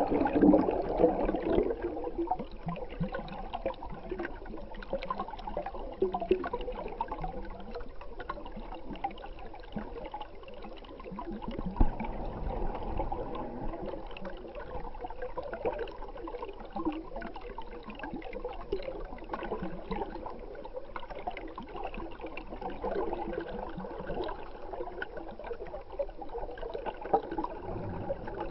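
Flowing stream water picked up by an underwater camera: a steady gurgling wash, with one brief knock near the middle.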